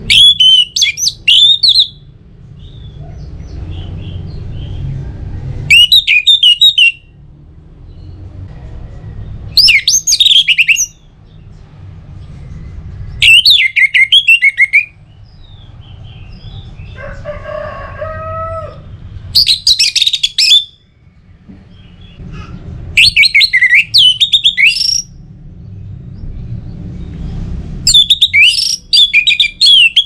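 Orange-headed thrush singing its loud full song (ngeplong) in short bursts of rapid, high whistled notes, seven phrases a few seconds apart. About halfway through, a lower, drawn-out call of another kind sounds once between phrases.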